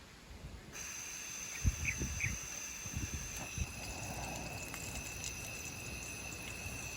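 Steady high insect trilling in two even tones, starting suddenly about a second in. A few low thumps come in the first few seconds.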